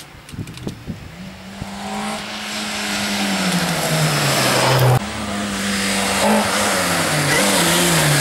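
Rally car engine approaching, its steady note growing louder over about four seconds. About five seconds in the sound cuts abruptly to a louder engine whose revs rise and fall. A few faint knocks come in the first second.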